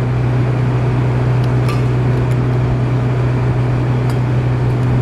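Small engine running steadily at an even speed, with a few faint clicks.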